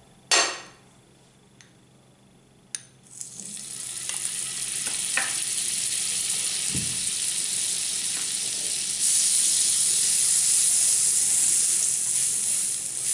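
Butter melting and sizzling on a hot nonstick tawa. A short clatter of the spoon on the pan comes just after the start, and a tap follows about three seconds in as the butter lands. Then a steady sizzle builds, and it grows louder about nine seconds in as the butter is brushed across the pan.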